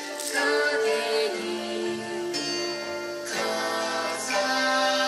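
Recorded yosakoi dance music with held notes that change about once a second.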